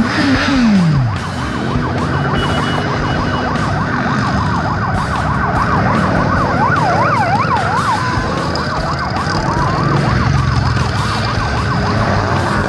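A siren yelping in quick rising-and-falling sweeps, which speed up about six seconds in and then give way to a slow rising wail, over the steady low running of motorcycles riding past at parade pace. One engine note falls away in pitch in the first second.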